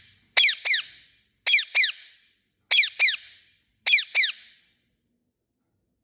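Parrot chirping loudly in quick pairs of sharp, downward-sweeping notes, four pairs about a second apart, then falling silent near the end.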